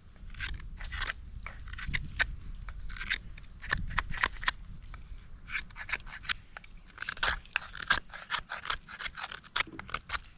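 Small pocket knife blade shaving a thin stick, carving a bow drill spindle: a quick, irregular run of short scraping strokes.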